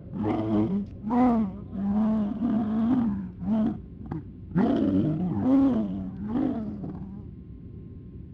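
A distorted, garbled voice trying to speak, making a run of short groaning, speech-like sounds without clear words, trailing off about seven seconds in.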